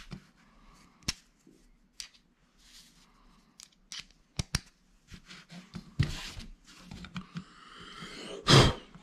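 Handling of a plastic thermostat wall plate and a screwdriver against a wall: scattered light clicks and taps with short scrapes, and a louder brief rustle near the end.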